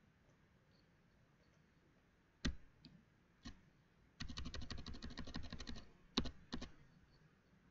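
Computer keyboard keys clicking as text is deleted: a couple of single key presses, then a quick run of rapid clicks lasting about a second and a half, then two more presses.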